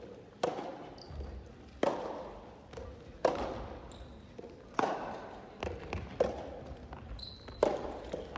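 Soft tennis rally: six sharp racket hits on a soft rubber ball about a second and a half apart, with softer bounces of the ball on the wooden floor between them and a few short shoe squeaks, each hit echoing in a large gym hall.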